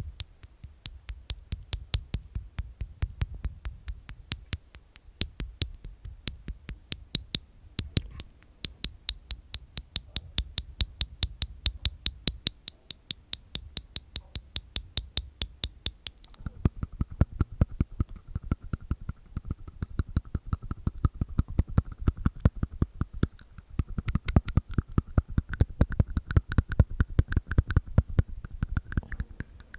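Close-miked ASMR mouth sounds: rapid wet tongue and inner-mouth clicks, about five a second, changing in tone about halfway through.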